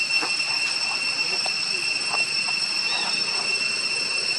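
A chorus of insects drones at several steady high pitches. Short, faint chirps come through it now and then.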